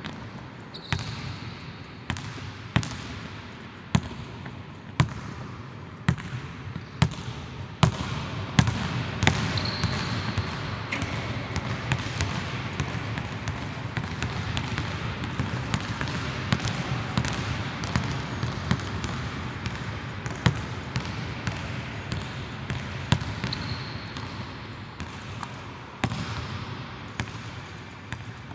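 A basketball dribbled on a hardwood court. Its sharp bounces echo through a large empty hall, about one a second at first and quicker later. Sneakers squeak on the floor a few times.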